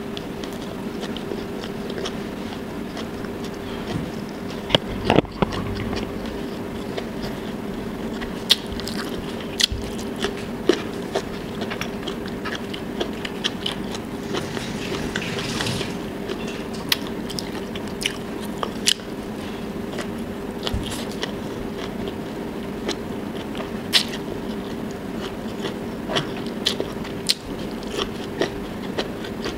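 Close-up mouth sounds of someone eating by hand: chewing and biting adobong sitaw (string beans braised in soy and vinegar) with rice, with scattered sharp clicks and smacks. A steady low hum runs underneath.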